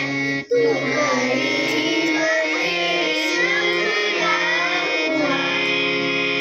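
Children singing a song with instrumental accompaniment, cut by a very brief dropout about half a second in. Near the end the singing gives way to a held chord.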